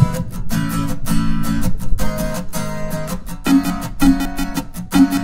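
Background music: a guitar strumming chords in a steady rhythm.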